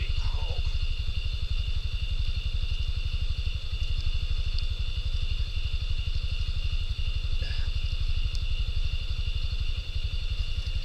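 An engine idling with an even, steady low throb, under a steady high-pitched whine.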